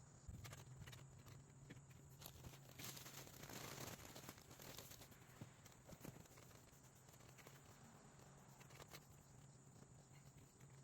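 Near silence: faint scattered taps and rustling over a low steady hum.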